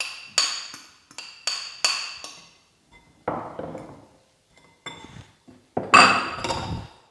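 Metal fork tapping on a glass bowl: several ringing clinks as chopped hard-boiled egg is knocked off into a glass mixing bowl. After about three seconds come duller glass knocks, and just before the end the loudest clatter as the bowl and fork are set down.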